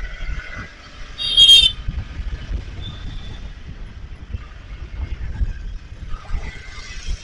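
Wind rumble on the microphone and a scooter's engine while riding in traffic, with a short, high vehicle horn beep about a second in.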